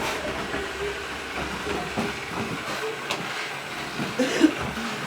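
CHUWI ILIFE V7S robot vacuum running: a steady hiss from its motor and brushes, broken by scattered clicks and knocks, the loudest a knock about four seconds in.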